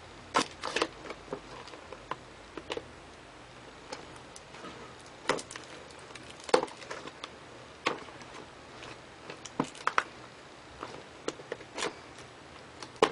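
Handling of a cardboard shipping box and packaging: scattered sharp knocks, taps and light rustles at irregular intervals.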